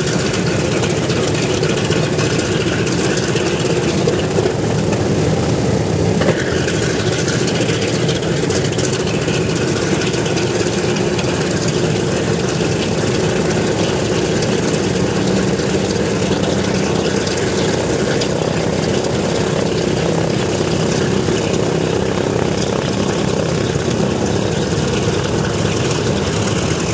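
Wright R-1820 Cyclone radial engines of a B-17 Flying Fortress running on the ground after start-up, a loud, steady propeller drone.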